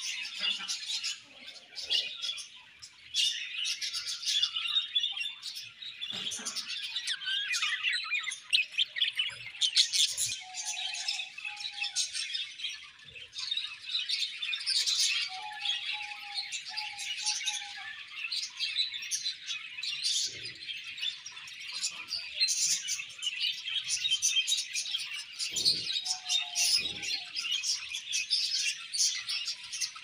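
A flock of budgerigars chattering and warbling continuously in a busy, many-voiced chorus of high chirps, with a few short lower notes now and then.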